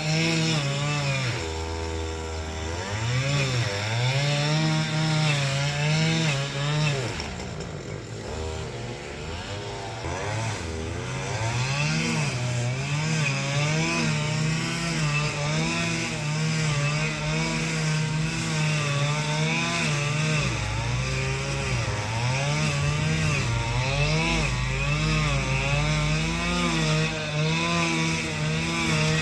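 Small handheld engine of a power tool running and being throttled up and down over and over, its pitch rising and falling, typical of garden clearing work with a chainsaw or brush cutter.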